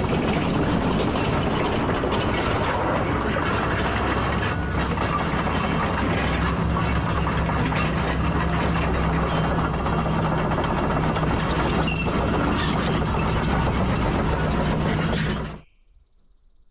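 Tracked excavator travelling, its steel tracks clanking and rattling over the engine's steady drone. The sound cuts off suddenly near the end.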